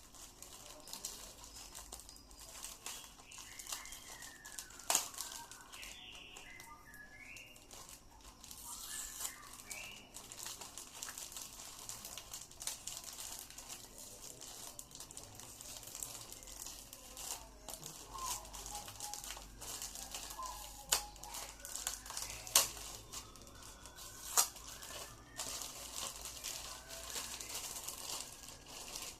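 Packaging being handled and crinkled, as in unwrapping a parcel, with four sharp clicks or taps. Birds chirp in the background.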